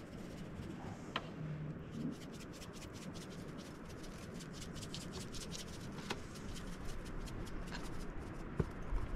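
Raw fish fillets being handled in a hinged wire grill basket: soft rubbing and scraping, with a few light clicks of the wire frame, about a second in, midway and near the end.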